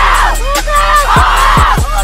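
Background music with a deep, steady beat and a pitched melodic or vocal line over it.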